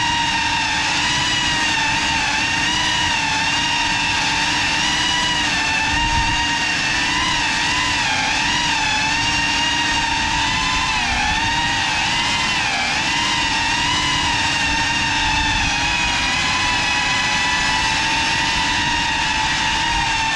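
Small FPV quadcopter's electric motors and propellers whining steadily in slow flight. The pitch wavers up and down a little with small throttle changes.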